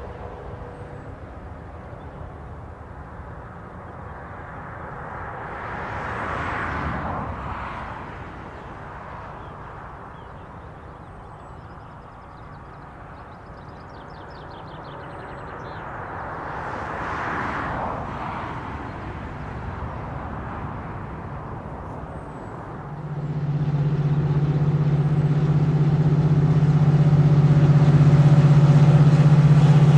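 Low distant rumble with two vehicles swelling past in turn. About 23 s in the sound jumps to the loud, steady drone of a GM 071 class diesel locomotive's EMD 12-cylinder two-stroke engine hauling a laden steel train toward the microphone.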